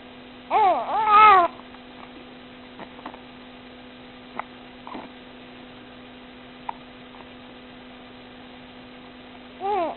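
A baby's pitched, cat-like squealing vocalisations: one about half a second in lasting about a second, and another starting near the end, with a few faint short sounds between. A steady electrical hum runs underneath.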